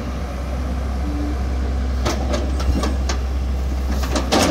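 Diesel engine of heavy earthmoving equipment running steadily with a low hum. Several sharp metallic knocks come from about two seconds in, and the loudest cluster falls near the end.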